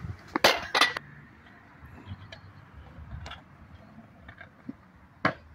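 Stunt scooter clattering on concrete: a quick run of loud metallic knocks and clinks in the first second, then scattered faint ticks and one sharp click near the end.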